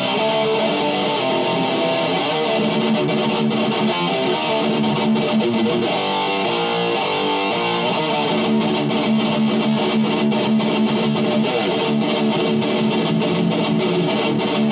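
Distorted electric guitar playing fast picked extreme-metal riffs, continuous and dense.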